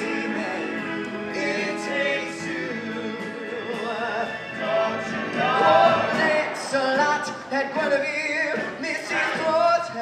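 Musical theatre number: a male lead singing into a handheld microphone with male backing vocals and band accompaniment.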